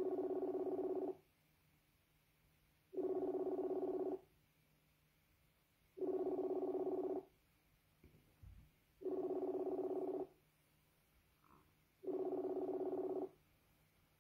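A repeating electronic ringing tone: a steady buzzy tone about a second long, sounding every three seconds, five times.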